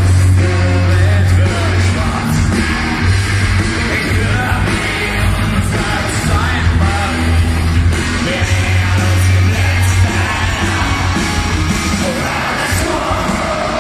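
Live punk rock band playing loudly in a stadium, with sung vocals, heavy bass and crowd yelling, picked up from among the audience.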